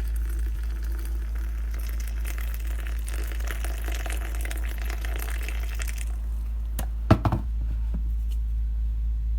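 Water poured into a glass teapot for about six seconds, then a couple of sharp knocks about seven seconds in, the loudest sound, over a steady low hum.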